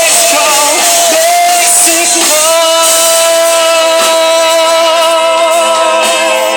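Live band music, loud and steady: a wavering melody line for the first couple of seconds, then a long held note from about two seconds in.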